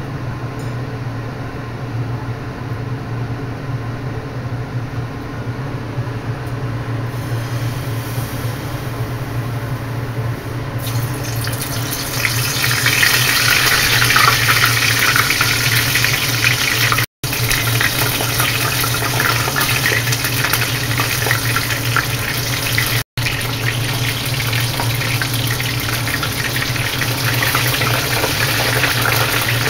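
Battered fukinotou (butterbur buds) deep-frying in oil at 170 °C: a dense crackling sizzle that sets in about twelve seconds in and holds steady, cutting out for an instant twice. A steady low hum runs underneath throughout.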